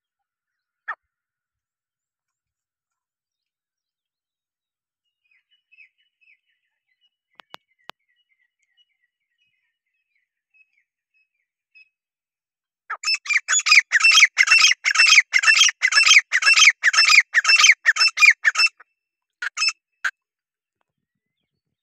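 Grey francolin (teetar) calling. A single short note comes about a second in. From about halfway there is a loud, fast run of repeated shrill notes lasting nearly six seconds, then two last notes near the end.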